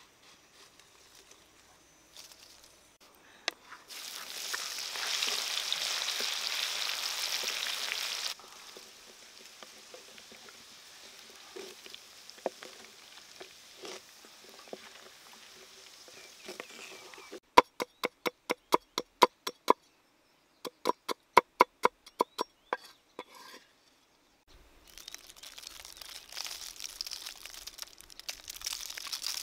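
Raw larvae, leaves and chillies being handled in a bamboo basket: a few seconds of hissing rustle, then two quick runs of sharp knocks at about four a second, then a crinkling rustle near the end as the leaves are worked in.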